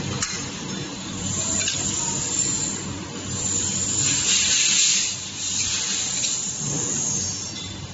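Semi-automatic capsule filling machine running: a steady low motor hum under a rushing air hiss that swells about four seconds in.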